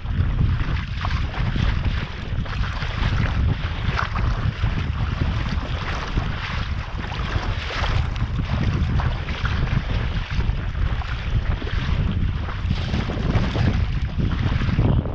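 Wind buffeting the microphone with a constant low rumble, over water splashing and slapping against the hull of a Sea Eagle 300x inflatable kayak sailing through choppy water.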